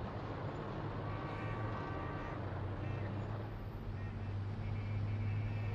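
The Ford Mustang Mach 1's V8 engine running at a steady low rumble in city traffic, with car horns honking in short blasts several times.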